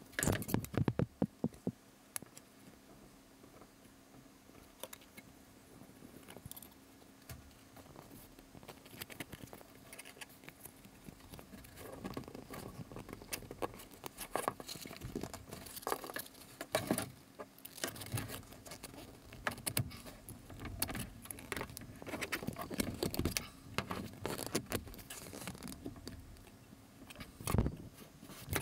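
Close handling noise of stiff wire being worked through a wine cork by hand: irregular small metallic clicks, scrapes and rustles. A loud cluster of clicks comes about a second in, and another loud click near the end.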